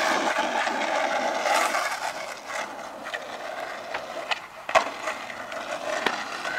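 Skateboard wheels rolling on a paved path: a steady rolling noise that fades as the board moves away, with scattered clicks and knocks. The loudest knock comes about three-quarters of the way through.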